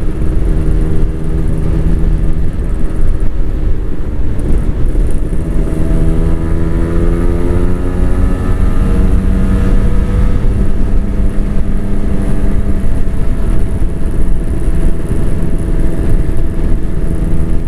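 Two-stroke single-cylinder Kawasaki Ninja motorcycle engines running on the move, over a heavy rush of wind on the microphone. The engine pitch climbs from about five seconds in until about twelve seconds in, then holds steady.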